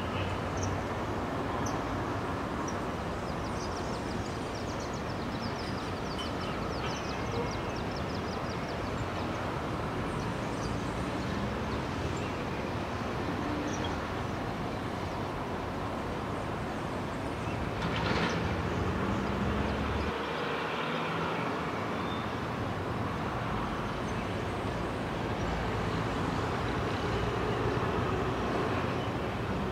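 Distant helicopter in flight: a steady rumbling drone of rotor and engine, with a brief sharper sound about eighteen seconds in.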